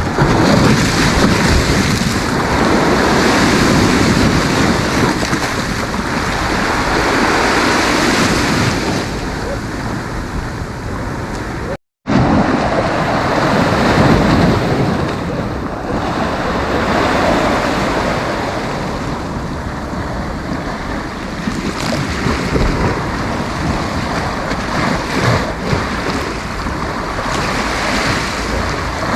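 Sea waves breaking and washing up a beach in surges that swell and ease every few seconds. The sound cuts out for a moment about twelve seconds in.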